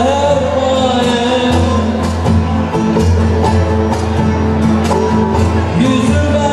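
Live Turkish folk song (türkü) played on two bağlamas, an acoustic guitar and a hand-struck frame drum (def), amplified through a PA, with singing over the strummed melody and a steady drum beat.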